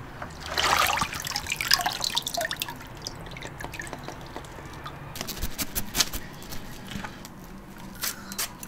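Water splashing briefly about half a second in, then dripping, with scattered small clicks and knocks.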